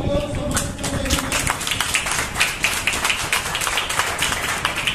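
A group of people clapping, a dense run of sharp hand claps starting about half a second in.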